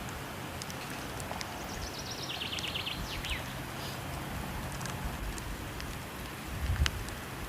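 Steady rush of falling water with the scattered clicks and pops of a crackling wood fire. A bird sings a short, rapid trill falling in pitch about two seconds in, and a louder pop with a low thump comes near the end.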